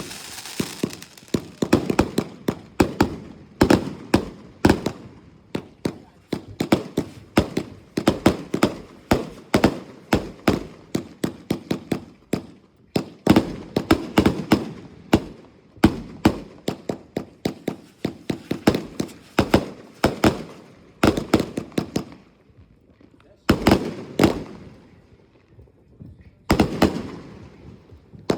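A 120-shot "Flying Tiger" fireworks cake firing: rapid sharp bangs, several a second, that come in volleys. There are short lulls about three quarters of the way through.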